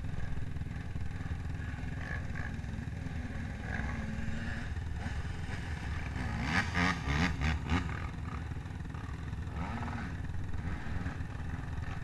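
Sport ATV engines idling, with a run of quick throttle blips from about six and a half to eight seconds in.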